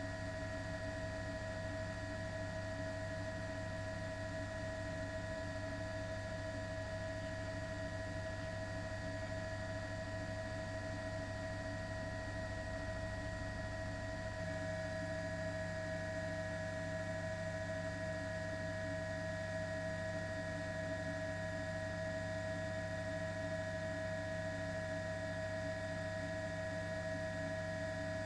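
Steady hum with several fixed whining tones layered over it, unchanging apart from a slight shift in the mix about halfway through.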